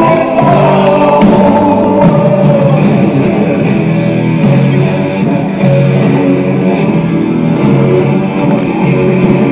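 A song with guitar and singing playing back from a cassette on a Pioneer CT-W310 dual stereo cassette deck, with little treble.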